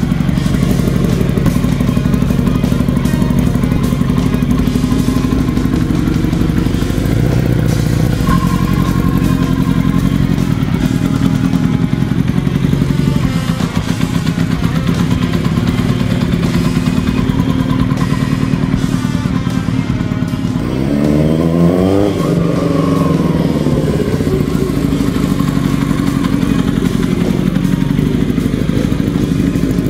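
Kawasaki KZ750 inline-four engine running, its carbs freshly tuned and balanced, as the motorcycle pulls away and rides along the street. About two-thirds of the way through it revs up and then drops back.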